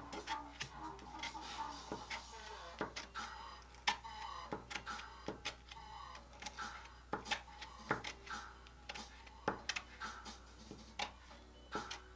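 Metal palette knife scraping and tapping through thick wet gesso on drawing paper, with irregular clicks and short scrapes, several a second.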